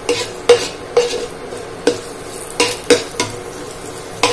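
A steel spoon scraping and tapping against a non-stick frying pan at irregular intervals while stirring cumin seeds and chopped garlic in hot ghee, with a light sizzle of the tempering beneath.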